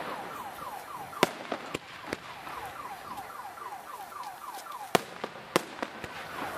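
Aerial fireworks bursting in a series of sharp bangs and pops, the loudest about a second in and again near the end. Behind them a short falling chirp repeats about four times a second.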